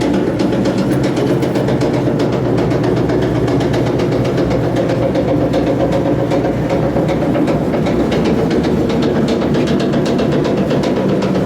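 Screw-drive wheelchair lift running under power, its electric drive humming steadily while the lightweight platform rattles with a fast, even clatter.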